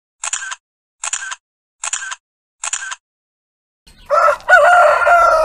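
A rooster crows loudly about four seconds in: a short first note, then a long held cock-a-doodle-doo that falls away at the end. Before it, four identical short clicks, evenly spaced a little under a second apart.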